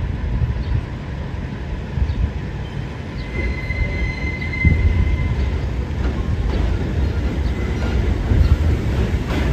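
An R143 subway train pulling into an elevated station: a low rumble of steel wheels on the el track that grows louder as it nears. A brief high wheel squeal comes about three and a half seconds in, with a scattering of clicks from the wheels over the rails.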